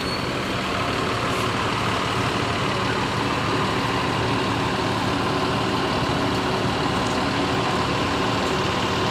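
Intercity bus diesel engine running steadily up close.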